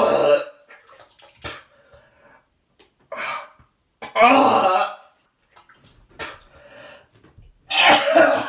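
A man retching and vomiting into a toilet: four loud heaves, a few seconds apart, with smaller gags between them. He is bringing up bile on an empty stomach during a bout of cyclic vomiting syndrome.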